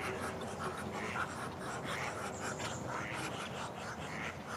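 Muscovy ducks giving quiet, breathy hisses in short irregular puffs.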